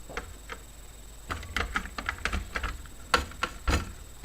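Light plastic clicks and taps of computer parts being handled and fitted: a quick irregular run starting about a second in, with a few louder knocks near the end.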